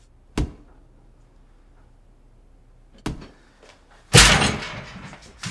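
A barred steel cell door being shaken and banged by hand: a short knock, a faint click, then a loud clanging bang about four seconds in that rings out.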